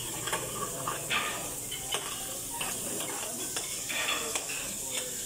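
Food sizzling in a pan at a buffet cooking station: a steady hiss, with scattered light clinks of utensils and dishes.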